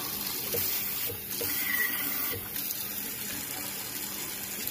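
Water running from a newly installed Moen kitchen faucet into the sink basin, a steady splashing hiss, as the new faucet is tested.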